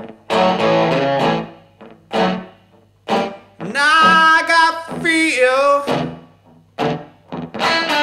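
Live blues: the singer belts one long held note, wavering for about two seconds near the middle, between short electric guitar phrases, with a low steady hum underneath.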